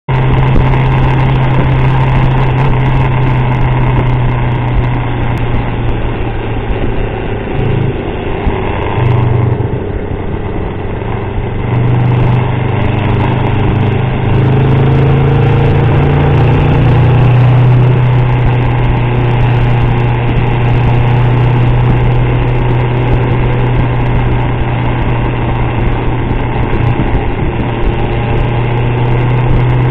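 Motorcycle engine running loudly and steadily while riding. It eases off around eight to twelve seconds in, then picks up again with a rising pitch.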